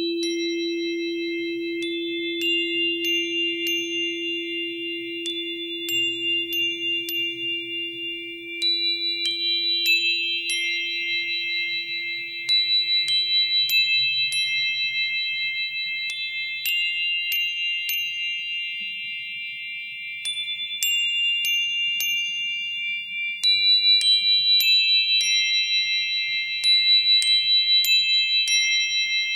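Meditative ambient music: high, sustained bell-like tones with scattered tinkling chime strikes, over a low steady tone that fades away about halfway through.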